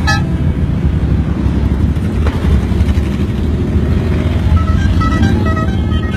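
Street traffic: a steady, loud rumble of vehicle engines, with a few short beeps near the end.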